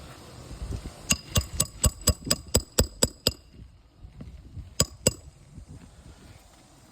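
Hammer striking metal on a shingle roof: a quick run of about nine ringing blows, about four a second, then two more a couple of seconds later.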